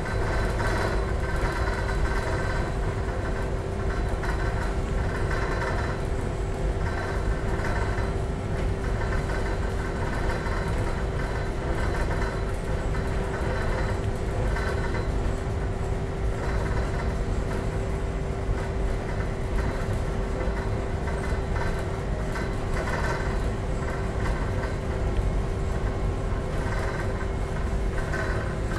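Steady low rumble with a constant droning hum: the machinery of a large ship underway, heard from indoors through window glass.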